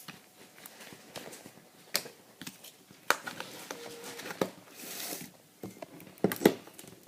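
Slime being handled and squished in the hands, with scattered small clicks and crackles.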